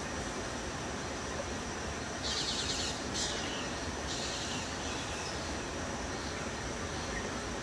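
Outdoor ambience among trees and undergrowth: a steady hiss with a thin high tone throughout, and bursts of high chirring calls from birds or insects about two seconds in and again about four seconds in.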